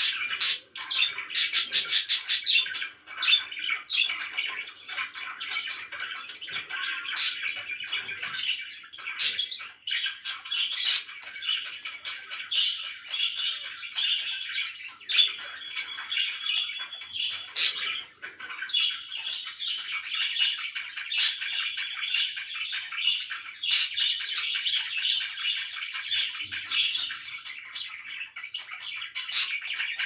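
Pet budgerigars chattering and warbling continuously, with sharp squawks and chirps breaking in every few seconds and a few short held whistles in the middle.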